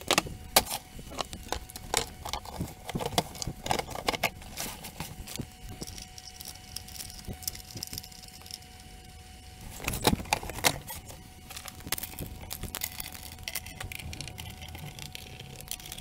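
Rapid, irregular clinks, clicks and knocks of metal case panels, screws and tools being handled as a stereo receiver is put back into its case. A cluster of louder knocks comes about ten seconds in.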